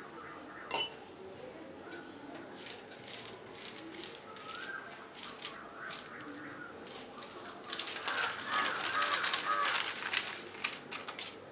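Butter paper rustling and crinkling as it is handled and folded over a ball of filled dough, loudest and busiest in the last few seconds. A single sharp click comes about a second in.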